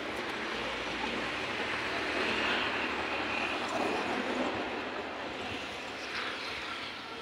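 Road traffic going by: a steady rush of engine and tyre noise that slowly fades near the end.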